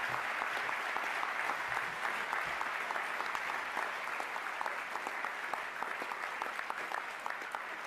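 Audience applauding, many hands clapping in a dense steady patter that eases slightly near the end.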